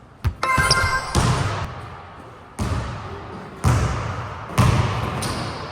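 A basketball bouncing hard on a court: about six heavy thuds spaced roughly a second apart, each ringing out briefly. A short high squeak comes about half a second in.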